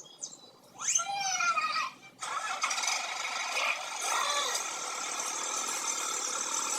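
A small motor whirs up briefly about a second in, then starts and runs steadily from just after two seconds.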